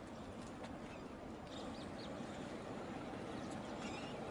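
Faint outdoor ambience: a steady low background rumble with a few faint bird chirps.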